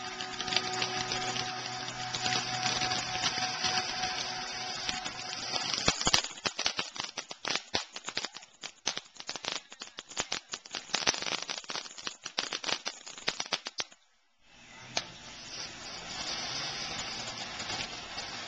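Ground firework fountain spraying sparks with a steady hiss. About six seconds in it turns to dense, irregular crackling. After a brief drop-out near the end it hisses again.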